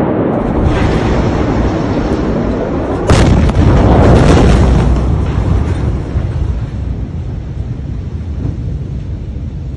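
Blast wave of the Beirut port explosion reaching the microphone: a sudden, very loud boom about three seconds in, then a deep rumble that fades over the next few seconds, over a steady roar of noise.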